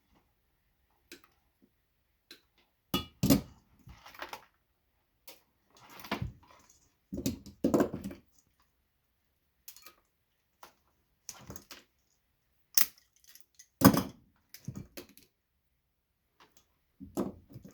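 Hand tools working on Christmas light strands: scattered clicks, snaps and short rattles as plastic bulb sockets are squeezed with pliers and snipped with cutters to free their brass contacts, with three louder snaps spread through.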